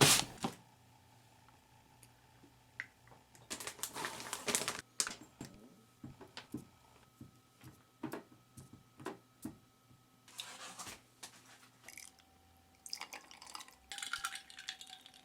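Light kitchen handling sounds from salad being made: scattered clicks and taps of dishes and utensils, with three short rustling bursts, over a faint steady hum.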